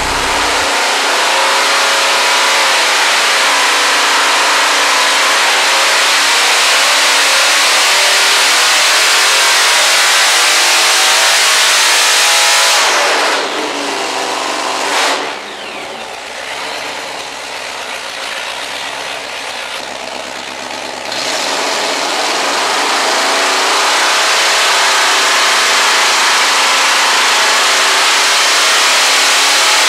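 572-cubic-inch all-aluminum supercharged Hemi V8 with twin carburettors running hard at high revs on an engine dyno. About 13 seconds in it drops back to a lower speed for several seconds, then revs back up and holds high again.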